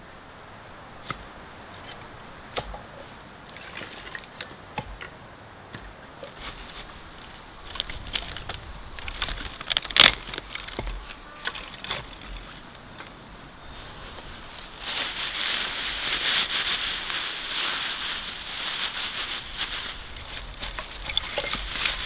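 Dry sticks and twigs clicking and snapping as they are handled and laid for a campfire, with one sharp snap about halfway through. Later a long spell of crisp rustling and crackling comes as a bundle of dry grass tinder is pushed into the stick pile.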